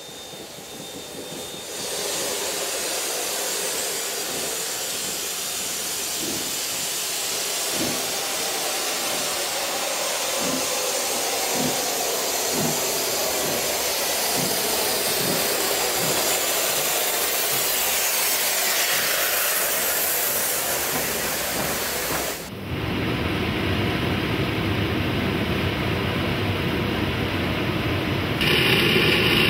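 Class 15F steam locomotive blowing down its boiler to purge built-up impurities: a loud, steady hiss of escaping steam with a few faint low thuds under it. About three-quarters of the way through, the hiss breaks off and gives way to a deeper rushing roar of steam.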